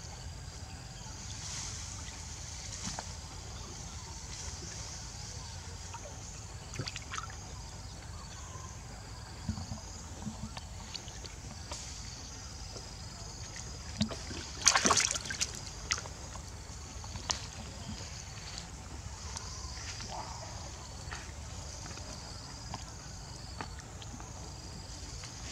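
Baby macaque paddling and splashing its hands in a plastic tub of water: small intermittent sloshes and splashes, with the biggest splash about fifteen seconds in.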